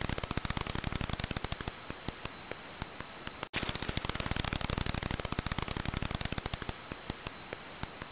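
Brown long-eared bat clicking: a rapid train of sharp high ticks thins out to sparse, evenly spaced clicks, breaks off about three and a half seconds in, then starts again as a dense train. A faint steady high tone runs behind the clicks.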